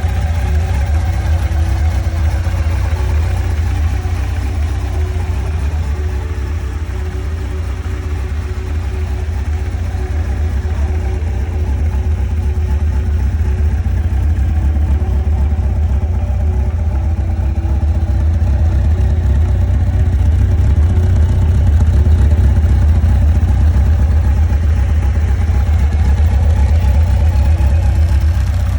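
Honda CBR900RR's inline-four engine idling steadily, growing a little louder in the second half.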